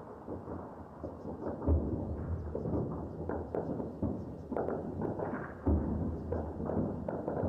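Distant gunfire and explosions from urban fighting: a continual crackle of shots, with two heavier booms about two seconds in and near six seconds in.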